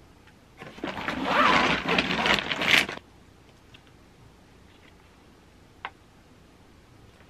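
Plastic packaging rustling and crinkling loudly for about two seconds as groceries are handled, then a single light tap.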